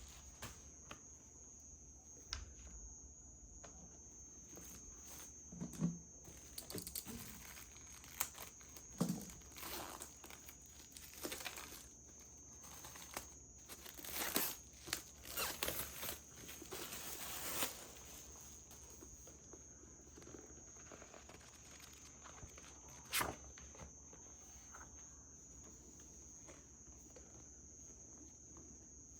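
Paper or packaging being handled up close: scattered rustling and crinkling with a few soft taps, busiest for a few seconds around the middle.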